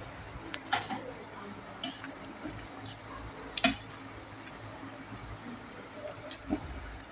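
A person eating: chewing, with several short, sharp mouth clicks and smacks, the loudest about halfway through.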